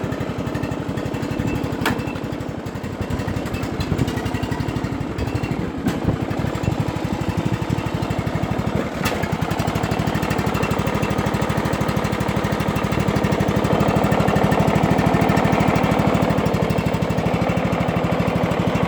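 John Deere lawn mower engine just started from cold, running steadily with a fast, even putter. It gets a little louder about two-thirds of the way through.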